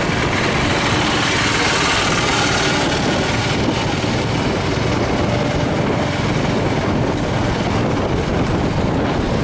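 Steady rush of wind and road noise from a vehicle travelling at speed, with engine hum underneath.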